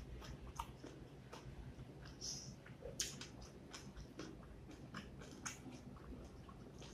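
Quiet eating sounds: scattered soft wet clicks and squishes of fingers mixing rice with beef curry on a plate, along with chewing, with a sharper click about three seconds in.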